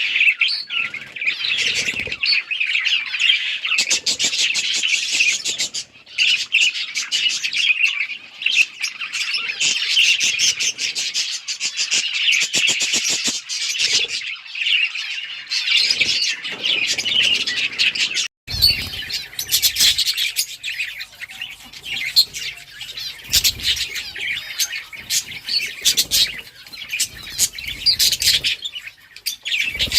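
A flock of budgerigars chirping and chattering continuously in dense, overlapping calls, with the odd squawk. There is a brief break just past the middle, and a low rumble runs underneath after it.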